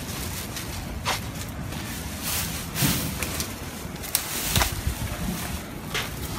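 Plastic trash bags full of dried weeds rustling and knocking as they are handled and pushed into the back of a van, in irregular bursts over a steady low rumble.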